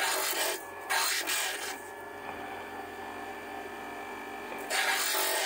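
A stone cabochon pressed against the spinning, water-fed disc of a flat lap grinder, giving gritty rasping strokes at the start, about a second in and near the end, over the machine's steady motor hum.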